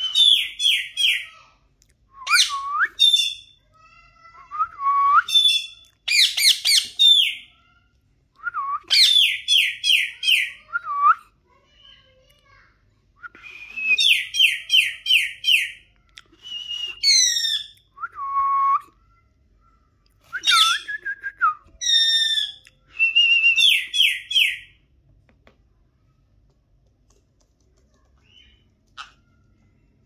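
Pet Alexandrine and Indian ringneck parakeets calling: loud, repeated bursts of rapid shrill notes, each dropping in pitch, mixed with a few rising whistles. The calls come in groups for about 25 seconds, then stop.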